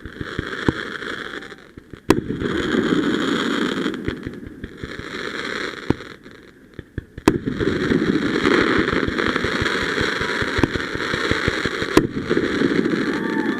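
Fireworks crackling in dense stretches of a few seconds each, broken by short lulls, with a few sharp single bangs among them.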